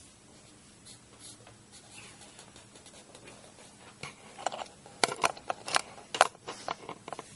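Thick black marker scraping across paper as lines are inked, faint at first, then a quick run of short, sharp strokes from about four seconds in.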